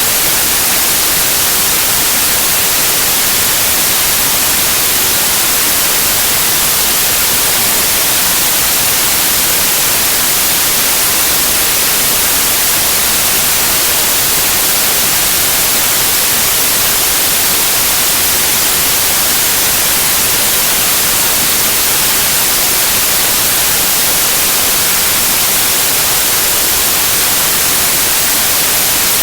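Steady white noise for sleep: an even, unbroken hiss that is brightest in the high end and does not change.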